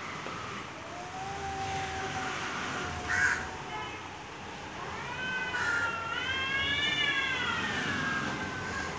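Cats in a standoff yowling at each other: a low, drawn-out moan in the first few seconds, then a long wailing yowl that rises and falls in pitch from about five seconds in. A short, sharp, loud sound cuts in about three seconds in.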